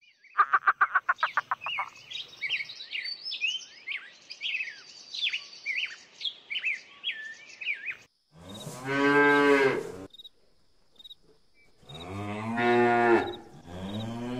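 Bird chirps: a quick run of rapid notes, then several seconds of whistled chirps. These are followed by two long, deep cow moos, each about two seconds.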